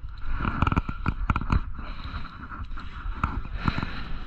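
Spinning reel being cranked by hand to retrieve a lure: irregular clicks and rattles from the reel and handle, over a low rumble.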